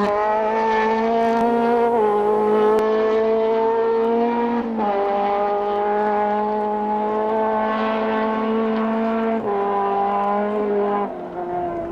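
Skoda Felicia Kit Car rally engine running hard at high, nearly steady revs, its pitch stepping slightly a few times, then dropping away in level near the end.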